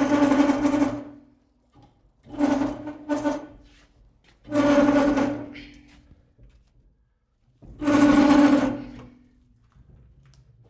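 Handheld electric power tool motor run in short trigger bursts of one to two seconds, holding one steady pitch and winding down after each release.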